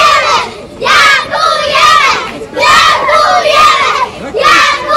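A group of preschool children shouting a chant in unison, loud and rhythmic, in short bursts about a second apart.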